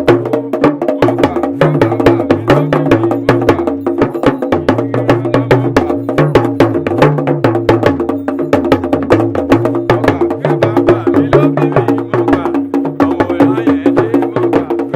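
Background music: fast, dense wood-block-like percussion over a held chord and a stepping bass line.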